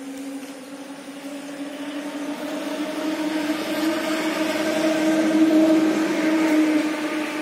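A steady engine or motor drone, holding one pitch that creeps slightly upward. It grows louder over the first five seconds, then eases off a little.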